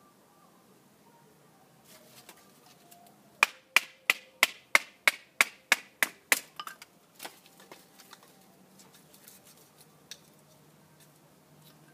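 Wooden baton striking the spine of a fixed-blade knife to split kindling on a stump: a quick run of about ten sharp knocks, roughly three a second, then a few lighter taps.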